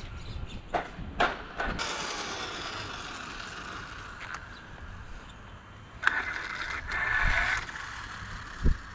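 Electric RC car drivetrain whirring in two short spells, with a few sharp mechanical clicks near the start and a low thump near the end.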